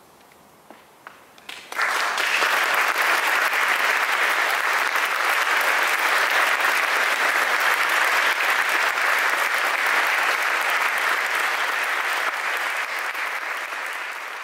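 A few scattered claps, then the audience breaks into full applause about two seconds in. The applause holds steady and eases off slightly near the end.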